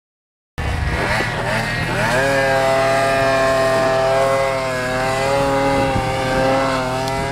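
Snowmobile engine held at high revs as the sled climbs a hill in deep powder, starting about half a second in; the pitch climbs about two seconds in, then holds high with slight wavering.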